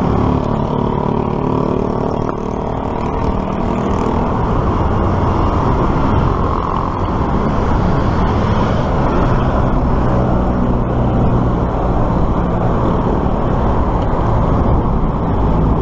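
Steady road-traffic noise from cars and motorcycles in the lanes beside a bike lane, heard from a moving bicycle. A pitched hum stands out for the first few seconds.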